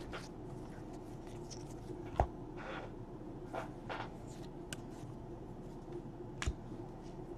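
Baseball trading cards handled and flipped through by hand: faint slides and rustles of card stock with a few small clicks, the sharpest about two seconds in and another near the end.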